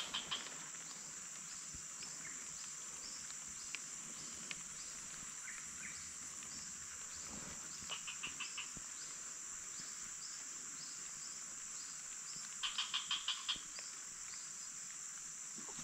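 Steady high-pitched insect chorus of crickets or cicadas, with a chirp repeating about twice a second. Two short runs of quick ticks stand out, a few about eight seconds in and more around thirteen seconds in.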